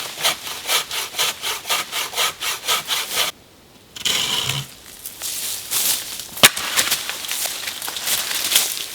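Homemade bow saw cutting through wood in quick back-and-forth strokes, about four a second. The sawing breaks off a little over three seconds in, then resumes less evenly, with a single sharp crack partway through.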